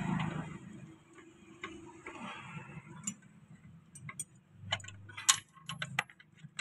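Light, irregular metal clicks and taps as a pin and brake parts are fitted by hand into a tractor's rear brake housing, with one sharper click about five seconds in.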